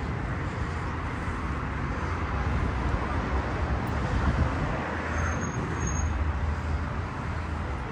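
Steady outdoor urban background noise with a low rumble, and two short high chirps about five and six seconds in.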